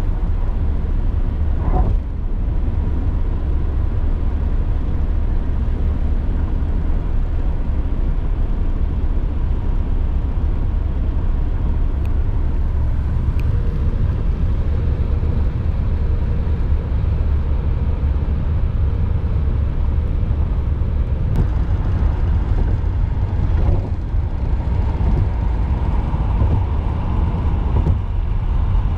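Steady low rumble of road and engine noise inside a car's cabin while it drives at speed.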